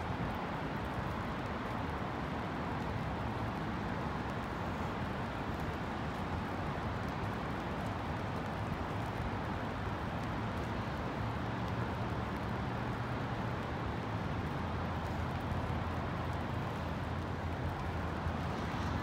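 Steady rain hiss mixed with city traffic noise from passing cars. A low traffic rumble grows stronger in the last few seconds.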